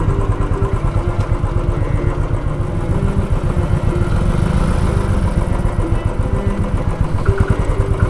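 Royal Enfield Bullet 350's single-cylinder engine idling steadily at close range.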